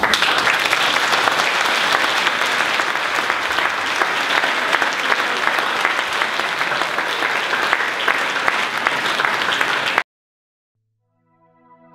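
Audience applauding steadily, cut off suddenly about ten seconds in; after a moment of silence, faint music begins near the end.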